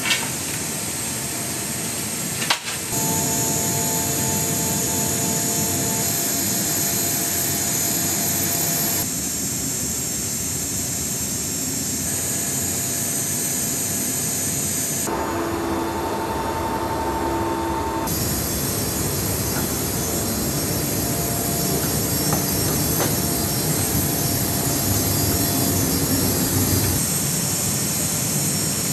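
Jet aircraft engines running: a steady rush with a high whine. The sound shifts abruptly every few seconds, and there is one sharp click about two and a half seconds in.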